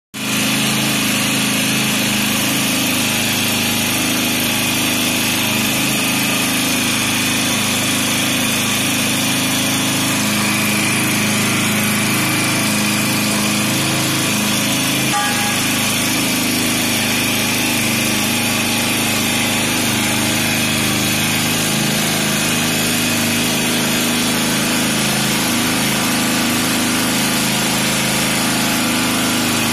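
Hydraulic power unit for a rescue cutter running with a steady, unchanging motor drone, with one faint click about halfway through.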